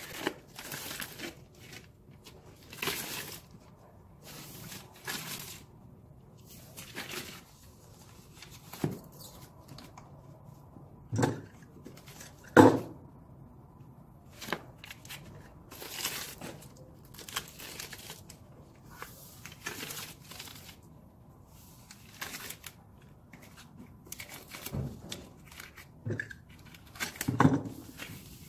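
Adhesive tape being pulled off its roll and peeled in short ripping strokes every second or two, with a few knocks of hands pressing strips onto wooden stair treads, the loudest near the middle and another near the end.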